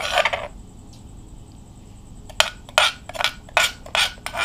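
Metal spoon scraping and knocking against a granite mortar, working out the last of a pounded herb paste. There is a short scrape at the start, then after a pause a quick run of short sharp scrapes and knocks.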